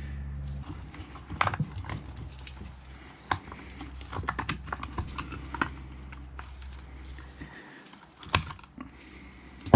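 Irregular light clicks and taps, with a few sharper knocks, of a screwdriver and gloved hands working a greasy CV axle joint as its cut rubber boot is pulled away. A steady low hum underneath fades out after about seven seconds.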